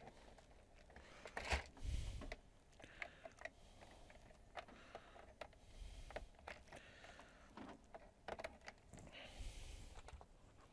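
Faint scattered clicks, taps and rustles of hands working at the back of an LCD TV while plugging in an HDMI lead, with a couple of louder knocks about two seconds in and again near eight seconds.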